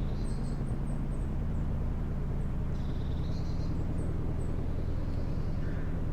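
Steady low engine hum, like a vehicle idling, with faint short high chirps over it.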